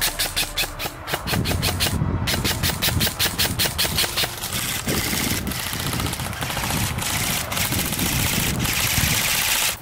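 Airsoft electric rifles firing long full-auto bursts: a rapid, even stream of shots, broken by a short pause about two seconds in and then running almost without a break.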